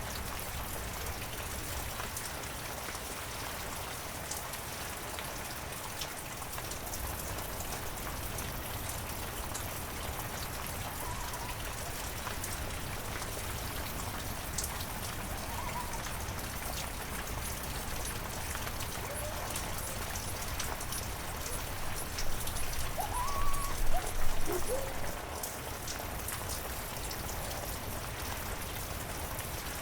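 Heavy rain falling steadily, with scattered sharp drop hits. It is joined by a few short sliding tones, with a louder stretch about three-quarters of the way through.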